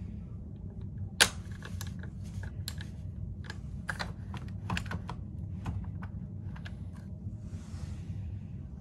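Small metal latch on a fabric folding door being worked by hand: a sharp click about a second in, then a run of lighter, irregular clicks and rattles. A steady low hum runs underneath.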